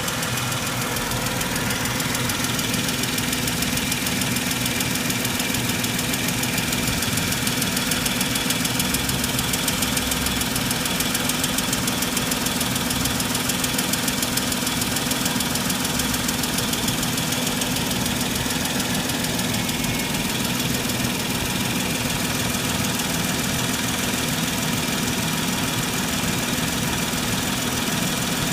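Mercedes-Benz W163 ML 350's 3.7-litre V6 idling steadily with a rapid, even clacking from the engine, a noise whose cause the owner does not know.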